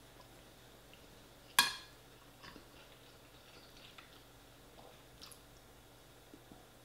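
Metal spoon clinking and scraping on a china plate as rice is scooped up: one sharp clink about a second and a half in, then a few softer ticks. Quiet chewing in between.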